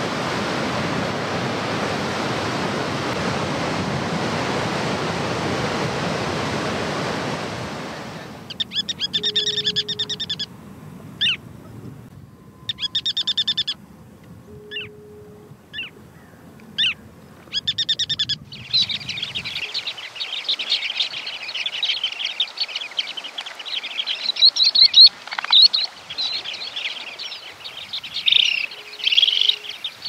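Surf breaking and washing in for the first eight seconds or so, then shorebird calls: ruddy turnstones giving several short rattling calls with single chip notes between them. From about nineteen seconds on, a flock of shorebirds chatters continuously in high, overlapping notes.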